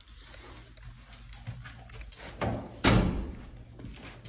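A door shutting with a single thud about three seconds in, amid light clicks and rattles.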